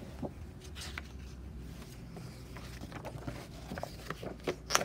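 Pages of a paperback picture book being turned by hand: soft paper rustles and light taps, with a sharper snap of a page near the end, over a low steady hum.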